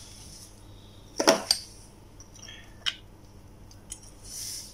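Small clicks and knocks of hard plastic and metal parts being handled and fitted together: the yellow plastic motor housing and metal end cap of a 12 V air compressor. There is one louder knock about a second in, a lighter click near three seconds, and a short rustle near the end.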